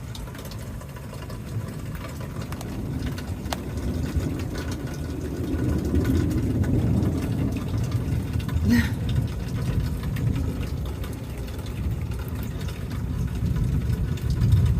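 Low, long rumble of thunder that swells about six seconds in and again near the end.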